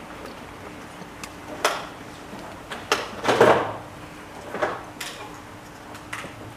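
Scattered light knocks and thuds, with one louder scraping rustle about halfway through, over a faint steady hum.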